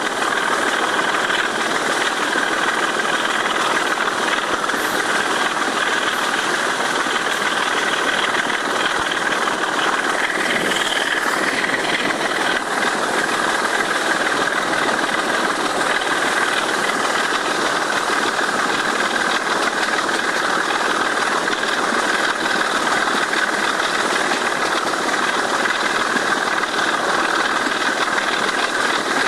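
Sulzer 6LDA28 six-cylinder diesel of a BR Class 25 locomotive working flat out: a steady, unbroken full-power thrash, heard from the side of the moving train.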